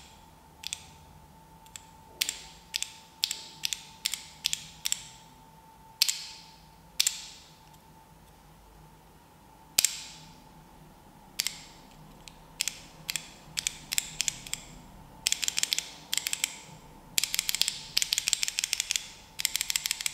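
Key switches of an ANAVI Macro Pad 2 two-key mechanical keyboard clicking as the keys are pressed: single presses about half a second to a second apart, then fast runs of presses in the last few seconds.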